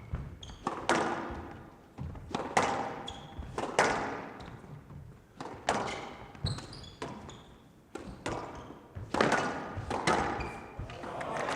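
Squash ball being struck by rackets and smacking off the court walls during a rally: sharp, echoing hits about once a second, with short high squeaks between them.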